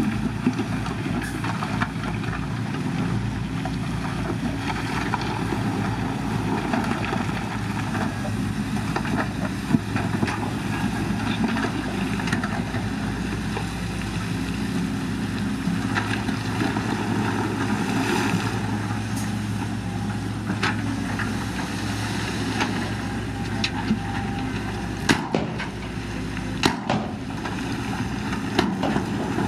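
Excavator's diesel engine running steadily, with a few sharp knocks, the clearest about ten seconds in and several near the end.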